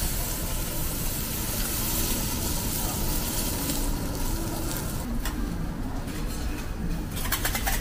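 Lamb chop and beef sizzling on a hot teppanyaki steel griddle, with metal spatulas working on the plate, over a steady low rumble. The sizzle thins out after about four seconds, and a quick run of metallic clicks and scrapes from the spatula comes near the end.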